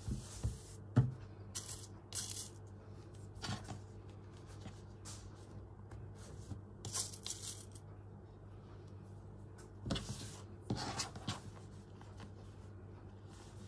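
Hands handling fabric pieces in short bursts of rustling and scraping, with a sharp knock about a second in, over a steady low hum.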